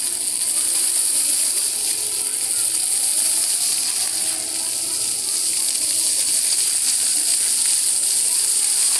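Water jets of a plaza floor fountain spraying and splashing down onto wet tiles: a steady, loud, hissing spray. Faint voices of onlookers sit underneath.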